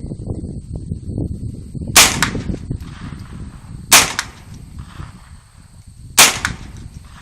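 Three shots from a Smith & Wesson M&P .22 LR, about two seconds apart, each a sharp crack with a short echo, over a low rumble.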